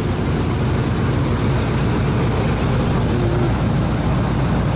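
Square-body GMC pickup's V8 engine idling steadily, warmed up.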